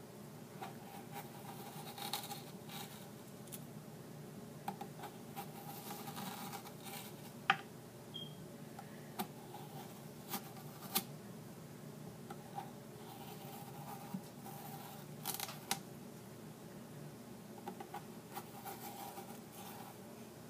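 Kitchen knife slicing thin cuts into a large raw potato: faint crisp cuts and clicks at irregular intervals over a steady low hum.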